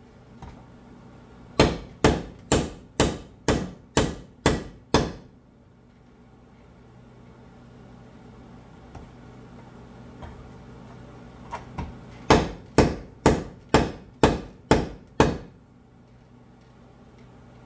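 Heavy sledgehammer striking a wooden wedge to drive it into the eye of a Plumb rafting axe's hickory handle, seating the wedge to lock the head tight. Two runs of about eight sharp blows, about two a second, with a pause of several seconds between them; the second run opens with two light taps.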